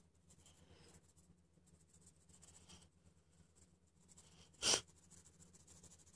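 Faint scratching of a drawing tool on paper over a low steady hum. About three-quarters of the way through, a single short, loud burst of noise stands out as the loudest sound.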